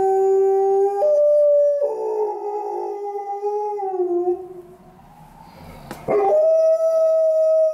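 Alaskan Malamute howling in long, drawn-out notes that step between pitches, set off by a passing ambulance. The howl trails off about four and a half seconds in and starts again about a second and a half later.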